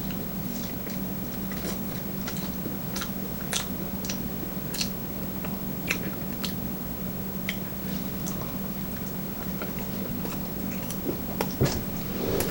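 Close-up chewing of sushi rolls, with irregular sharp wet mouth clicks and smacks over a steady low hum.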